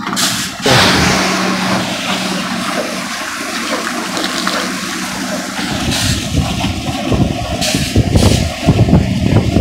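Water from a hose gushing into the hopper of a cement mixer truck, filling the drum so it can be washed out; a steady rushing splash with the truck's steady engine hum underneath. A few low thumps come near the end.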